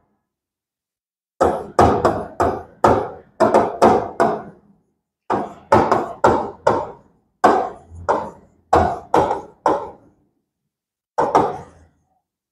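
Rapid taps and knocks in short runs, two to three a second, pausing twice: the sound of writing on a classroom board.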